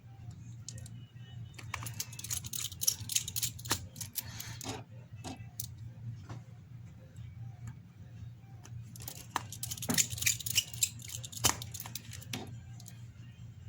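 Small metal repair tools and tiny screws clicking and rattling against an opened iPhone 7's internal parts during reassembly, in two spells of quick light clicks.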